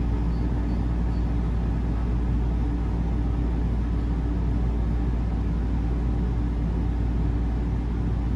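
Steady low mechanical hum heard inside an enclosed gondola of La Grande Roue de Montréal Ferris wheel. A deep, even drone carries a few fainter steady tones above it, unchanging throughout.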